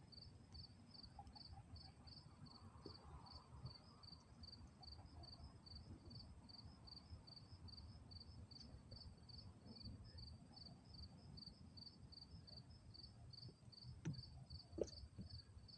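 A cricket chirping steadily, a few short high chirps a second, over a faint low rumble. A few soft knocks come near the end.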